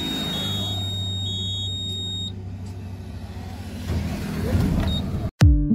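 Mahindra truck's instrument cluster giving a steady high electronic beep for about two seconds as the ignition is switched on. About four seconds in, the truck's diesel engine cranks and starts, rising in level. Background music cuts in just before the end.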